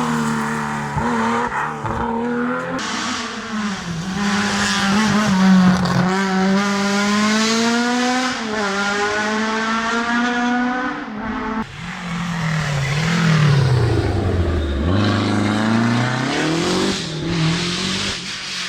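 Historic rally cars driven hard on a stage, engines revving up through the gears with pitch climbing in steps and dropping at each shift. About two thirds of the way through the sound changes abruptly to another car that slows and then accelerates away.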